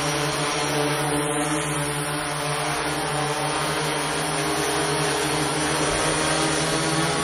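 Flat8 eight-rotor multicopter running steadily: its motors and propellers make a constant many-toned hum and whine that holds its pitch.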